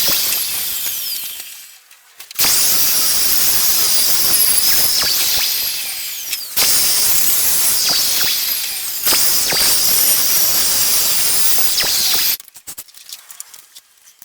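High-pitched power tool running in several spells of a few seconds each, the sound concentrated high up with a wavering whine. It dips and restarts about two, six and nine seconds in, then stops abruptly about twelve seconds in.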